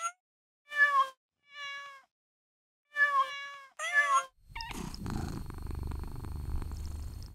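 A domestic cat meowing, about five short meows in the first four seconds, one of them quieter. A steady low rumble follows for the last three seconds.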